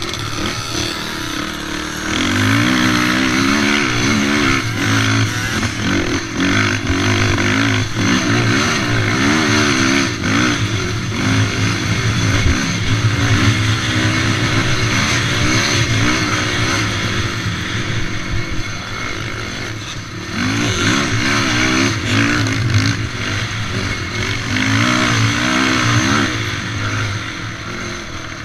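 Race quad's engine revving up and dropping back again and again as it is ridden hard, heard from on board the machine. It gets louder about two seconds in.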